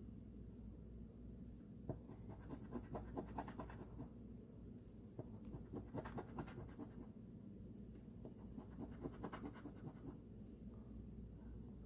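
Scratch-off coating being scraped off an instant lottery ticket, faint, in short bursts of quick strokes with pauses between.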